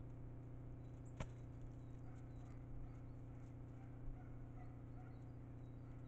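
Common pheasants foraging in snow, with faint scattered pecking and scratching ticks, over a steady low hum. One sharp click about a second in.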